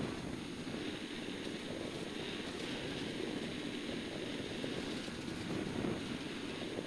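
Mazda RX2 rally car's rotary engine running hard on a gravel stage, heard from inside the cabin, with steady road and gravel noise from the tyres.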